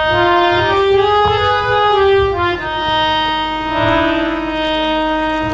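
Live folk-drama accompaniment: a reed instrument plays a melody in held notes, ending on one long sustained note, over a steady drum beat.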